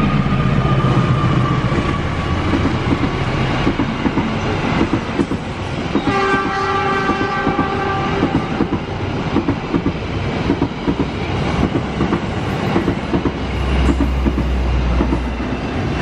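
Passenger train hauled by a diesel locomotive passing close by. The locomotive's engine tone fades over the first few seconds, then the coaches' wheels clatter over the rail joints in a steady rhythm. A multi-tone train horn sounds for about two seconds around six seconds in.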